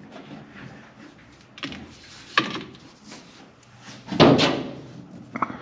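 A few separate knocks and clunks of tools and parts being handled, the loudest about four seconds in with a short ring after it.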